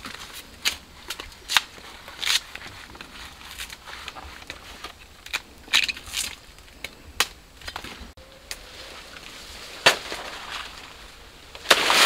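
Crisp, irregular snapping and crunching of a fibrous wild banana flower stalk being cut and stripped with a knife in gloved hands, several sharp cracks a second, thinning out in the second half.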